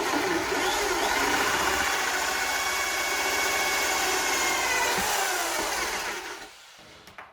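Power drill spinning a 2-inch hole saw as it cuts into a wooden board. It runs steadily for about six seconds, then the drill is let off and winds down.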